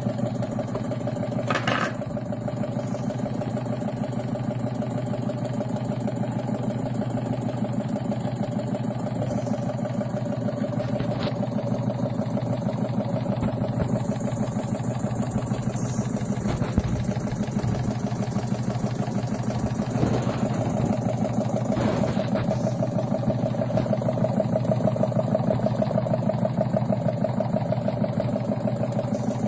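Restored Jensen #50 model steam engine running steadily with a fast, even mechanical beat, turning a little slow, with a few light clicks along the way.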